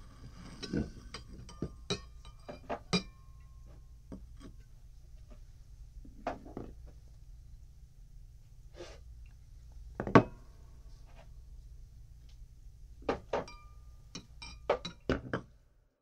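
Drinking glasses clinking and knocking on a bar counter, each strike sharp with a short ringing tone. The strikes come irregularly, the loudest about ten seconds in, then a quick run of clinks near the end before the sound stops.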